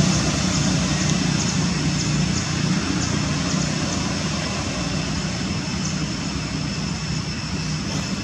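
Steady outdoor background noise: a low rumble with a hiss over it, unchanging throughout, with a few faint high ticks now and then.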